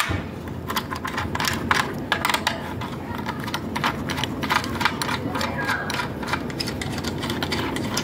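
Steel open-end spanner clinking and scraping on the flange bolts of an electric water heater's heating element as the bolts are loosened to remove the failed element. The sound is a run of quick, irregular metallic clicks.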